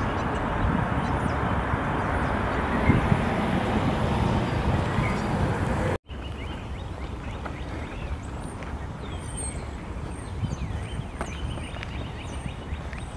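Outdoor ambience: a steady rush of wind and distant traffic noise that cuts off abruptly about six seconds in, giving way to a quieter background with faint high bird chirps.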